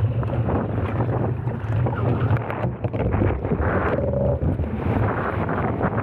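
Strong wind buffeting the microphone over the rush and splash of water along the hull of a Laser 2 dinghy sailing fast downwind in over 20 knots of wind.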